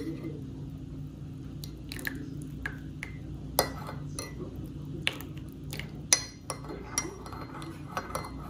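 Metal teaspoon stirring black coffee in a porcelain cup, clinking against the cup's sides at irregular moments, about once or twice a second, over a steady low hum.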